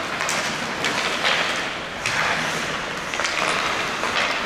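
Ice hockey skates scraping and carving across the ice during play, in repeated hissing swishes about once a second.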